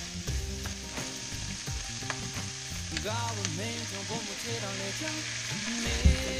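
Wood ear mushrooms sizzling in hot oil in a frying pan, stirred and scraped with a wooden spoon, with a few clicks and a sharper knock near the end.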